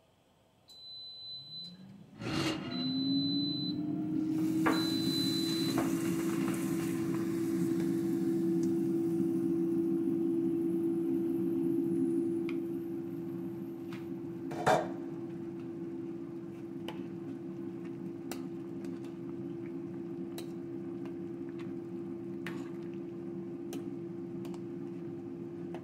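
A kitchen appliance's fan motor is switched on with a few short keypad beeps, then spins up in a rising hum and runs steadily. About 15 seconds in there is a single sharp metal clank, with light clicks after it.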